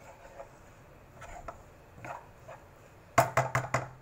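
Spatula knocking and scraping against a wok while stir-frying vegetables, with a quick run of four or five sharp clanks about three seconds in.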